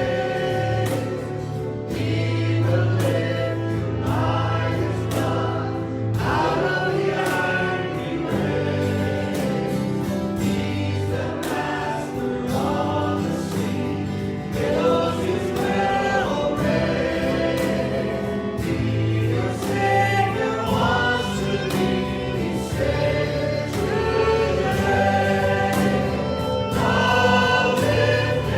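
Church congregation singing a gospel worship song with a band, over a steady bass line and a regular beat.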